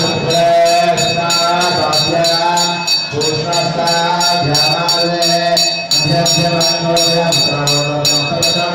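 Devotional temple music: a wavering melody over a steady low drone, with a small metal bell ringing in a fast, even rhythm of about four strokes a second.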